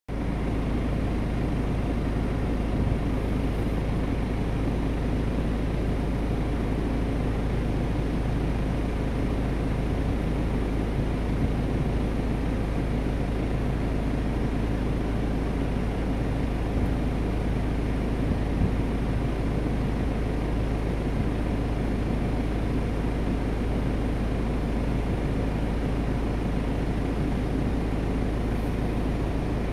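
Steady low rumble with a constant hiss, with no distinct calls or impacts.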